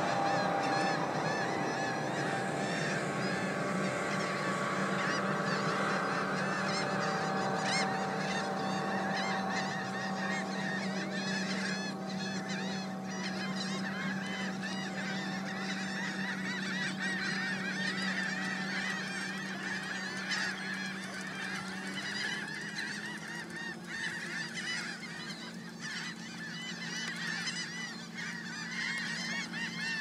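A nesting colony of gulls calling, many short honking calls overlapping continuously. A steady low drone runs beneath them and shifts up slightly in pitch about two-thirds of the way through.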